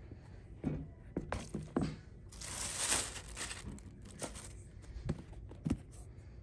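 Black wrapping paper in a sneaker box crinkling and rustling as a hand pulls a shoe out, loudest for about a second in the middle. Several light knocks of handling come before and after.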